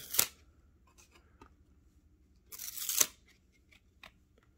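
1994-95 Fleer basketball cards stuck together being peeled apart by hand: a short crackle at the start, then a half-second tearing sound about two and a half seconds in that ends in a sharp snap as the card comes free, with a few light clicks of card handling after. The cards are stuck together with age.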